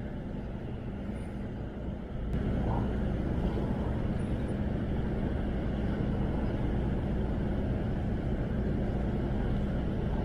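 An engine running steadily with a low hum, growing louder about two seconds in and then holding.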